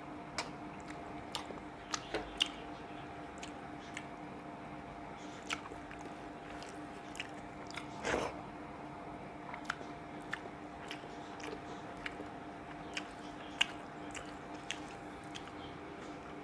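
Close-up mouth sounds of a person eating rice and dal by hand: soft wet chewing with scattered lip smacks and clicks, and a longer, louder smack about eight seconds in. A faint steady hum runs underneath.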